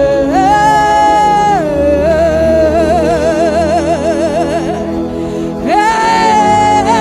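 A singer holds long wordless 'oh' notes over a sustained gospel keyboard chord. The voice slides up and holds, wavers in a fast trill through the middle, then slides up again to a held high note near the end.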